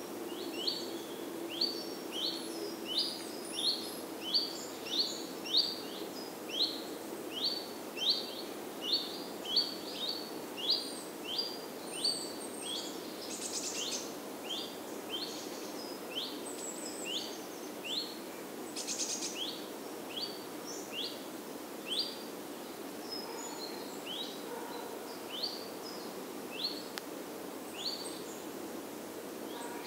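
A bird repeating a short, rising chirp, about one to two times a second and slower in the second half, over steady low outdoor background noise. Other birds chirp faintly now and then.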